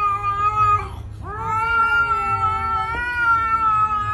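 Domestic cat yowling at another cat in a face-off: one long drawn-out wail that breaks off about a second in, then a second wail that swoops up and holds steady.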